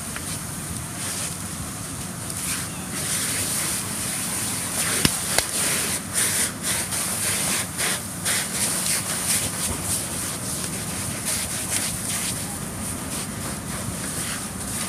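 Fire hose stream hissing onto a burning car, the hiss surging and easing as the water turns to steam, with fire crackling. Two sharp pops about five seconds in, over a steady low hum.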